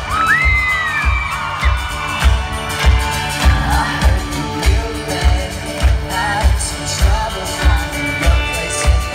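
Pop-punk band playing live: a kick drum on a steady beat under guitars and a singing voice, heard from the audience in a large hall.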